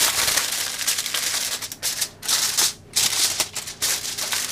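Aluminium foil crinkling as it is spread and pressed down over a dish, in irregular rustling scrunches with a couple of brief pauses.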